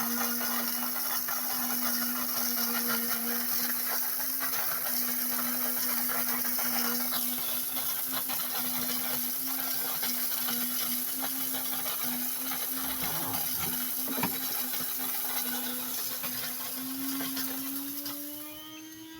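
Aldi Ambiano HY-1407 electric coffee grinder grinding coffee beans: a steady motor hum under a dense grinding rattle. Near the end the motor's pitch rises and the grinding noise drops away.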